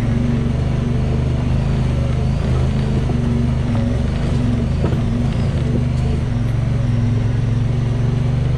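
A motor vehicle's engine running at a steady speed, an even drone that holds its pitch throughout.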